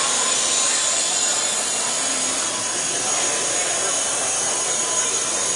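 Small electric 4-channel radio-controlled helicopter flying, its motor and rotor whirring steadily.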